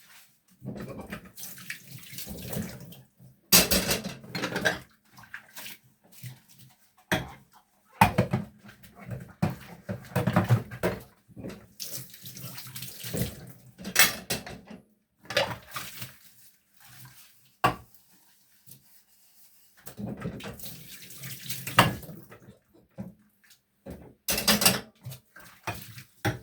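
Water from a kitchen tap running into a sink in stop-start spells of a few seconds, with sharp knocks and clatter of dishes being washed up by hand.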